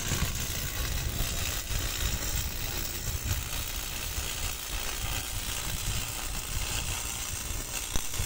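Stick (electrode) arc welding along a steel keel shoe: the arc gives a steady, even sizzling hiss as the weld runs.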